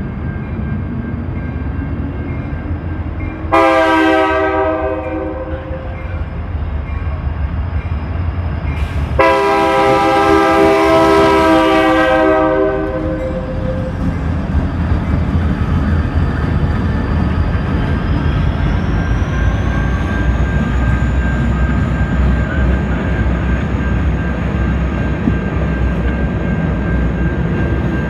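Locomotive horn on a CN local freight led by two ex-EMDX EMD SD60 diesels sounds twice, a shorter blast about three and a half seconds in and a longer one of about three seconds near ten seconds in, as the train approaches. The locomotives' diesel engines then run past, followed by freight cars rolling by on the rails.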